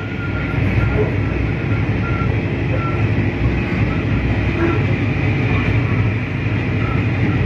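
Diesel locomotive running at speed: a steady low engine drone mixed with wheel-on-rail noise, heard at close range from the coach coupled right behind it. Brief high squeaks come and go.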